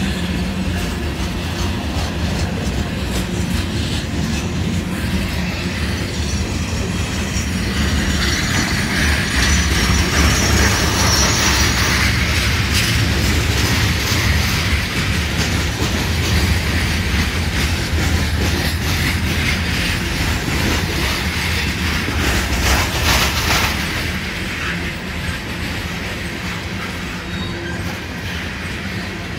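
A long freight train of coal hopper cars passing close by. A diesel locomotive's low engine rumble goes by first, then the cars roll past with a steady rumble and clickety-clack of steel wheels on rail. The wheel noise swells through the middle with some high wheel squeal, and a few sharp clanks come near the end.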